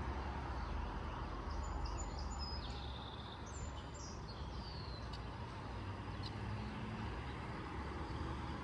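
A steady low rumble, with several short high bird chirps between about one and a half and five seconds in.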